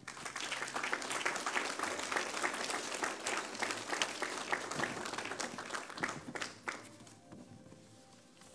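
Congregation applauding, starting right away and dying away about seven seconds in.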